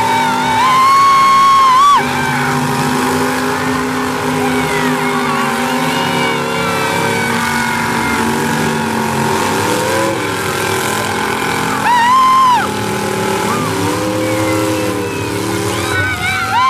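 Several demolition derby cars' engines running and revving together in overlapping, rising and falling tones, with louder high revs about a second in and again about twelve seconds in.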